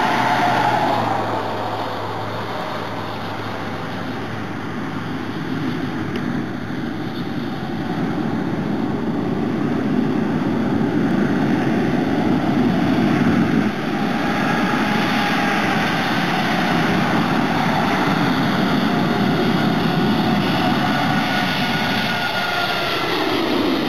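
Singapore Airlines Airbus A380's four Rolls-Royce Trent 900 turbofans on landing approach: a jet roar that grows louder, with a whine riding over it, whose pitch drops near the end as the airliner passes overhead.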